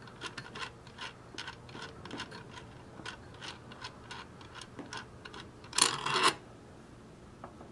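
A nut being unscrewed by finger from a gumball machine's threaded metal center rod: a run of small, irregular clicks and light scrapes, with one louder, brief scrape about six seconds in.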